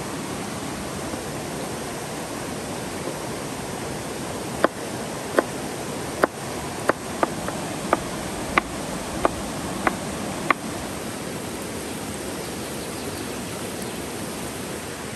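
Knife chopping a yellow bell pepper on a wooden board: about ten sharp knocks over some six seconds, starting a few seconds in, over the steady rush of a river.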